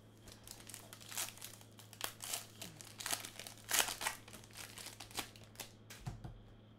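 Foil wrapper of a Topps Tribute baseball card pack crinkling and tearing as it is pulled open by hand, in irregular bursts that are loudest just past halfway. A soft low thump near the end.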